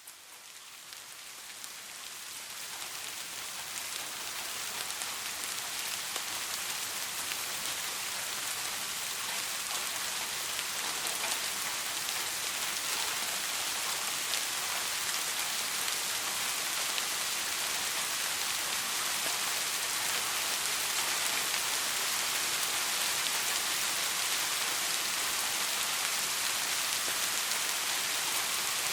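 Steady rain falling, a dense even hiss with faint patter. It fades in from near silence over the first few seconds, then holds level.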